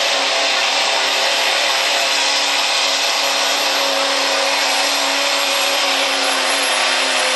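Turbocharged diesel pickup truck engine held at full throttle under heavy load while pulling a weight-transfer sled. It is a loud, steady high-rpm drone that holds its pitch throughout.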